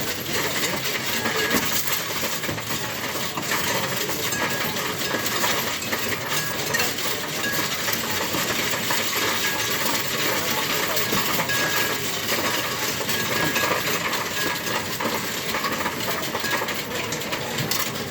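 Many coins clattering and rattling without a break as a coin-counting machine takes them in and sorts them.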